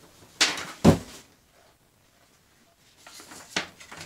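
A cardboard shipping box being opened and handled. Two sharp knocks come about half a second apart near the start, then a quiet stretch, then rustling and another knock near the end.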